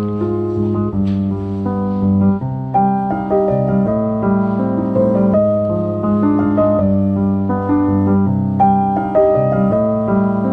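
Background music on keyboard: a melody of short notes over held low notes.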